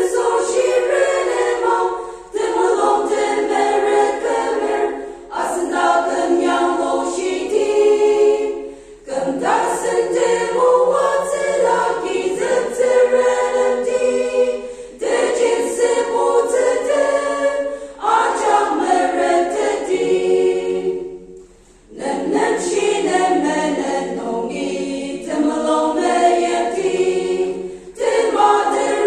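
Women's choir singing a cappella, in phrases of a few seconds with short breaths between them and one longer pause about three-quarters of the way through.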